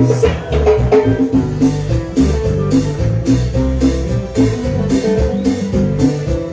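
Live cumbia band playing: an electric guitar picks a melody over bass and drums with a steady beat.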